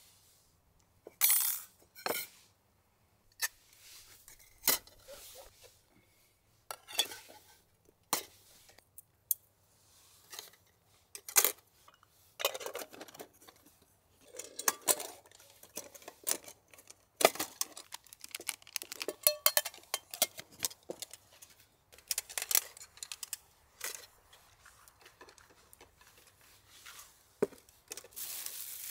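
Camping cookware being handled: irregular metallic clinks, knocks and short clattering runs of pots, cups and utensils.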